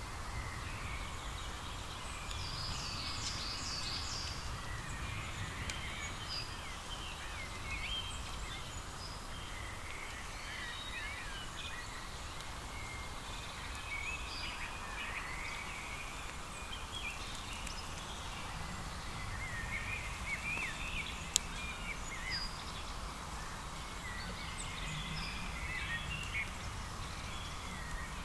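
Outdoor ambience of several small birds chirping and singing in short, varied phrases over a steady low rumble, with a single sharp click about two-thirds of the way through.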